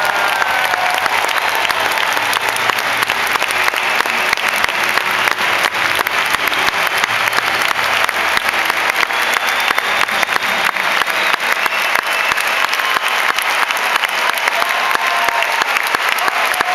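A large arena crowd applauding, steady dense clapping throughout, with a few faint voices above it.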